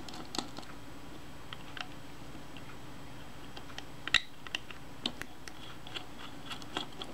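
Sparse small clicks and taps of hand work on a Kodak Retina I camera's metal top plate while two small screws are taken out; the sharpest click comes about four seconds in.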